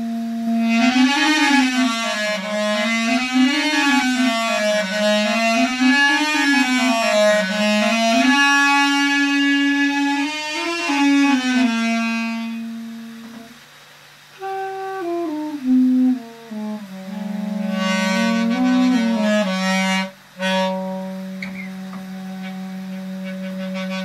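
Duduk playing a slow melody over a steady low drone: the tune sways up and down in pitch through the first half, steps down in a few short phrases, then settles on a long held low note near the end.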